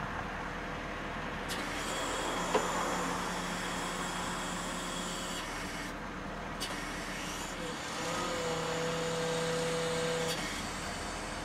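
Unic spider crane running steadily, with a whine from its engine and hydraulics rising twice as the boom is worked. The first whine comes about two seconds in and lasts about three seconds as the boom goes up. The second comes near the end and lasts about two seconds as the boom comes down.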